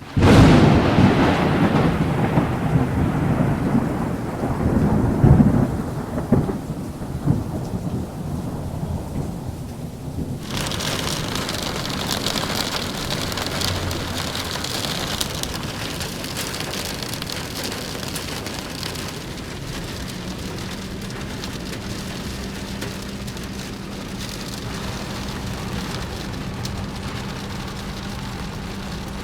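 Storm of strong wind and rain. Heavy, low rumbling gusts for the first six seconds or so, then a steady hiss of rain from about ten seconds in.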